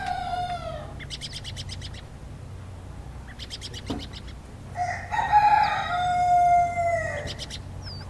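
A rooster crowing: the tail end of one crow at the start, then a full, long crow beginning about five seconds in. Short bursts of rapid chirping clicks come between the crows.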